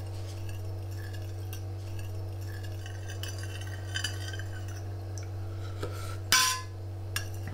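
Metal spoons clinking and scraping against plates during a meal, with one louder clink that rings briefly about six seconds in, over a steady low hum.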